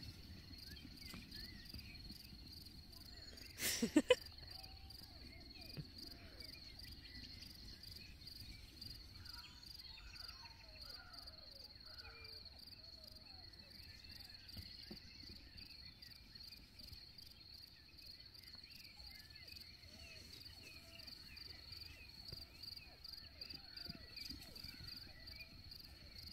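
Crickets chirping in a steady, rapidly pulsing high trill, with faint shorter calls beneath it. About four seconds in there is a brief loud knock with two sharp clicks.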